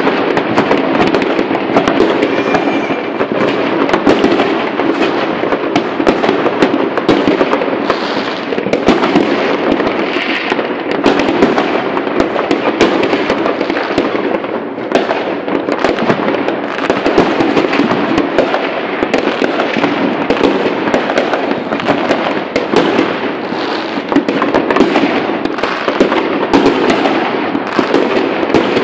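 Many fireworks and firecrackers going off at once across the sky: a constant dense crackle of overlapping bangs and pops, with no pause.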